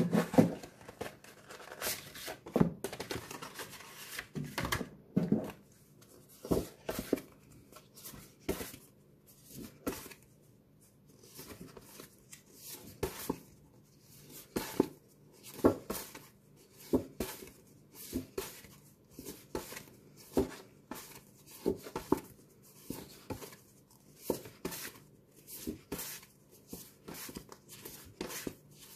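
Thick cardboard flashcards being handled: slid out of their paper sleeve at the start, then flipped over one at a time, each card giving a short papery slap, about one a second.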